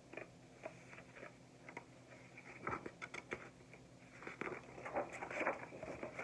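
Quiet handling noise of a picture book: soft rustling and scattered small taps as its page is turned.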